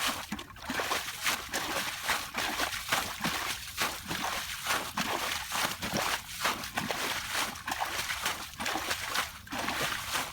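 Shallow water sloshing and splashing in irregular surges, roughly one a second.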